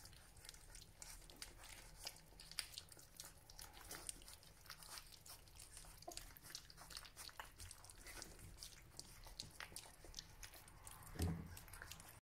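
Three-week-old Border Collie puppies lapping and chewing soft weaning mousse from a shared dish: many faint small clicks and smacks, with one louder low thump near the end.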